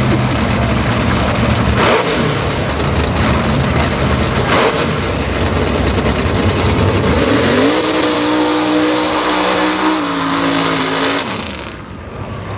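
Mud bog truck's engine running loud and revving. About seven seconds in it climbs to a high steady pitch under throttle, holds it for about three seconds, then cuts off.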